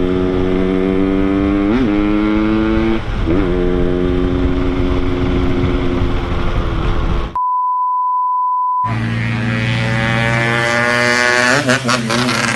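Two-stroke motorcycle engine idling, with short throttle blips about two and three seconds in and a few more revs near the end. About seven seconds in the engine sound cuts out and a steady high beep plays for over a second.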